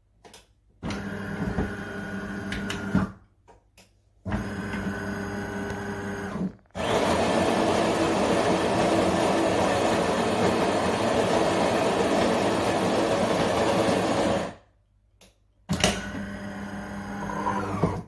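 De'Longhi Magnifica Start bean-to-cup coffee machine working through its cycle: two short runs of a steady motor hum, then a louder, coarser steady whirr for about eight seconds, then another hum that winds down in pitch as it stops.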